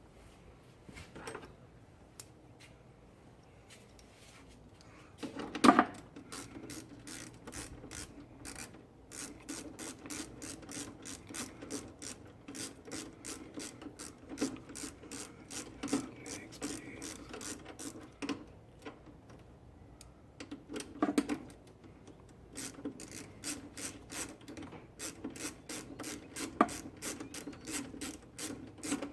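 Hand ratchet clicking in long, even runs of about four clicks a second while fasteners are worked on an airbox install, broken by a couple of louder knocks.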